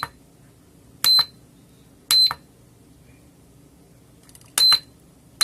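iMax B6 LiPo balance charger beeping at button presses while it is fast-charging: short, high electronic beeps, three about a second apart, a pause, then two more near the end.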